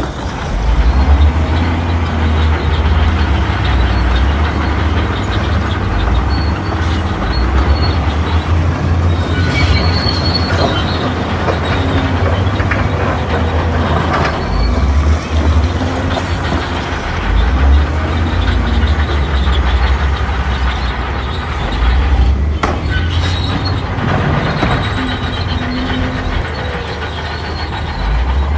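Shantui D31P crawler bulldozer's diesel engine running steadily under load, a deep drone, with occasional squeals from its steel tracks as it pushes earth.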